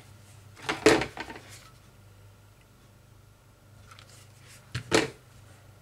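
Two sharp plastic clacks of a hot glue gun being handled: taken off its plastic mat about a second in, and set back down about five seconds in.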